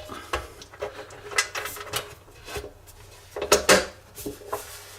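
Metal parts of a pillar drill being handled and fitted together: scattered clicks and knocks, with two louder knocks in quick succession a little past the middle.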